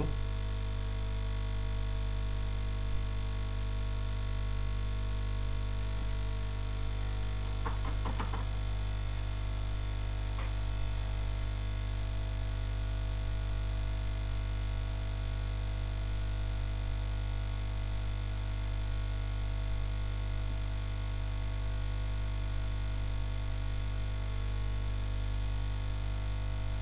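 Steady electrical mains hum with a stack of overtones, unchanging throughout, with a couple of faint taps or clicks around 8 and 10 seconds in.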